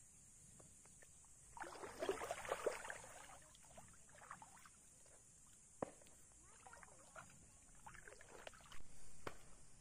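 Water sloshing and splashing in several short bursts, the first and loudest a couple of seconds in, with a few sharp clicks, over a steady high hiss.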